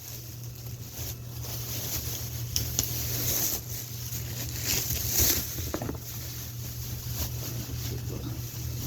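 Plastic packaging and wrapping crinkling and rustling in short bursts as a box is unpacked by hand, over a steady low hum.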